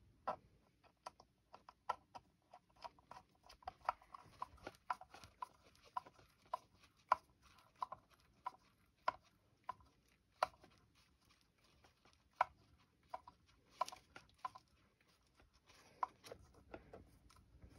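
Small sharp clicks and ticks, about two a second and uneven, from a hand screwdriver working a stiff screw into the metal mount. The screw binds where the others did not, which the owner puts down to a burr or a little extra coating in the thread.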